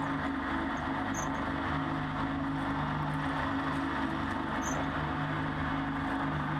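Shredder's electric motor running with a steady hum and whir, holding an even level throughout.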